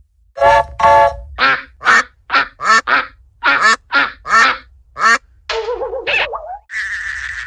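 Sound effect of about a dozen short, pitched animal-like calls in quick succession, followed by a wavering call and then a steady high buzzing tone that starts near the end.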